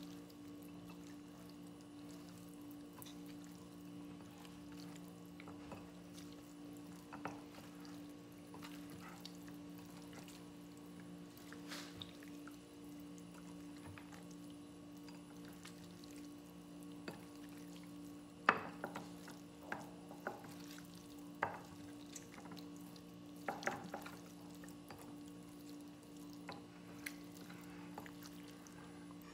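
Bare hands mixing raw pork and chicken pieces in a liquid marinade in a bowl: faint wet squishes and clicks, with a few sharper ones past the middle. A steady low hum runs underneath.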